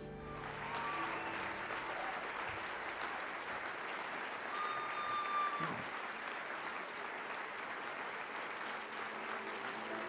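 Large audience applauding steadily, a dense continuous patter of many hands clapping.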